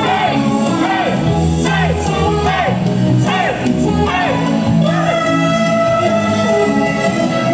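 Loud pop music with singing, with shouts from the crowd; the singing moves in short gliding phrases about once a second, then holds one long note near the end.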